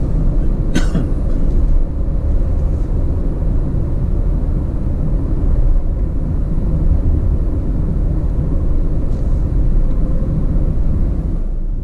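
Steady low road and engine rumble from a vehicle driving along a highway.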